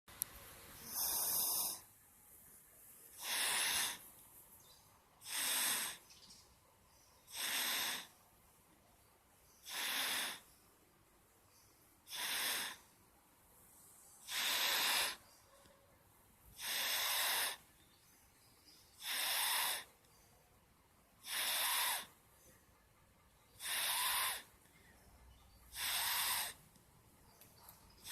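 A sleeping child snoring: a rasping snore on each breath, steady and regular, a little over two seconds apart.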